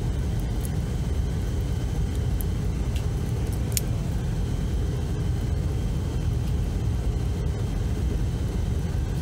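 Steady low rumble with no change in level, with a faint click about four seconds in.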